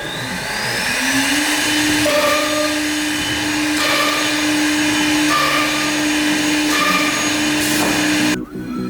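Electric motor of a side drilling and saw-cutting machine spinning up with a rising whine, then running at a steady pitch. A fainter tone comes and goes about every second and a half. The sound cuts off abruptly near the end.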